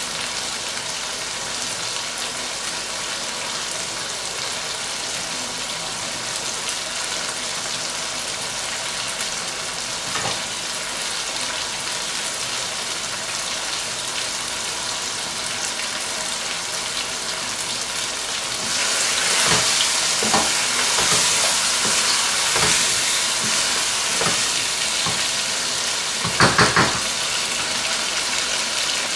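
Chicken karahi sizzling steadily in a gravy in a nonstick wok. About two-thirds of the way in it is stirred, and the sizzling grows louder with scraping in the pan, then three quick knocks of the utensil against the pan near the end.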